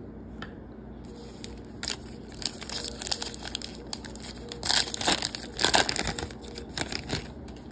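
Plastic wrapper of a baseball card pack crinkling and tearing as it is opened by hand: a run of sharp crackles starting about two seconds in, loudest just past the middle.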